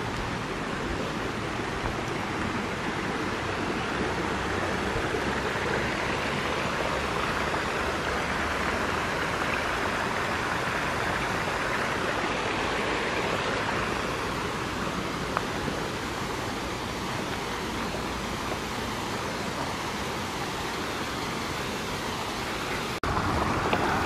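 A stream's flowing water, a steady even hiss.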